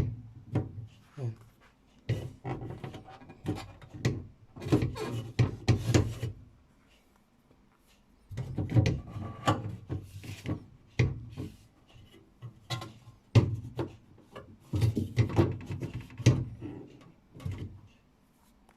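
Plastic fittings of a new refrigerator being pulled out, pushed and handled: irregular bursts of knocks, clacks and rubbing, with a short pause partway through.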